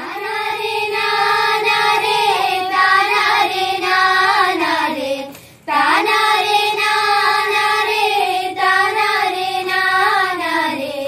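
A group of schoolgirls sings a Malayalam folk song (nadanpattu) together in unison. It comes as two long, drawn-out phrases with a short break for breath about five and a half seconds in.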